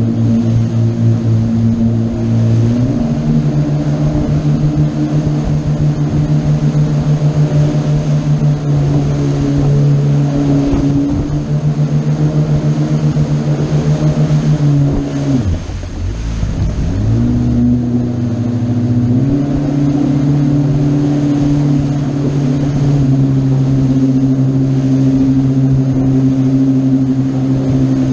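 Boat engine running under way, with its drone stepping up in pitch about three seconds in. Around the middle it drops sharply as the throttle is eased off, then picks back up and holds steady for the rest.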